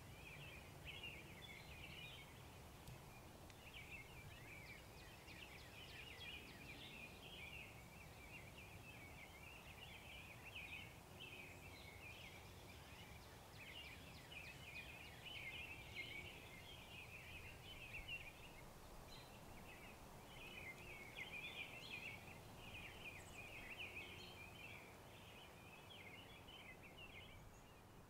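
Faint, busy chirping and twittering of distant birds, running almost without pause, with a brief lull about two-thirds of the way through.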